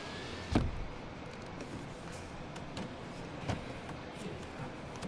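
A few light knocks and clicks of parts being handled in a car door's inner workings, the loudest about half a second in, then scattered smaller taps.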